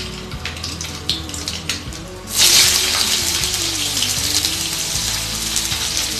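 Panch phoron seeds crackling lightly in hot mustard oil in a kadai. A bit over two seconds in, sliced onions go into the oil and a loud, steady sizzle takes over.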